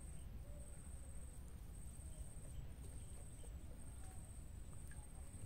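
Quiet outdoor ambience: a steady, very high-pitched insect buzz broken by short gaps, over a constant low rumble, with a few faint short bird chirps.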